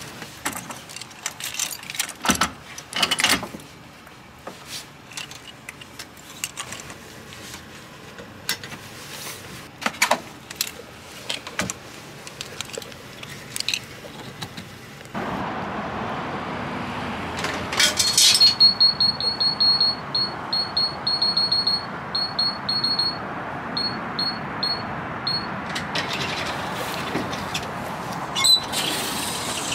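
Metal clicks and clanks of a caravan being hitched to a car's tow ball, with the coupling head, breakaway cable and electric plug being fitted. About 15 seconds in, the steady running of an air compressor for tyre inflation begins. A few seconds later comes a quick series of short, high beeps that pauses and starts again.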